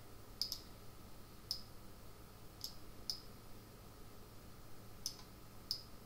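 Computer mouse clicking: about seven short, sharp clicks at irregular intervals, two of them close together near the start, over a faint steady hum.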